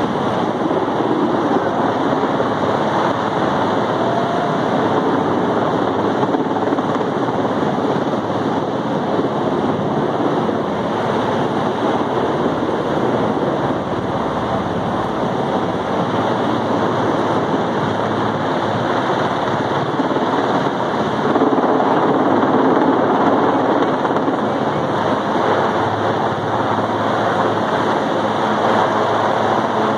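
Helicopter hovering overhead: a steady, loud rush of rotor and engine noise with a low, even hum underneath.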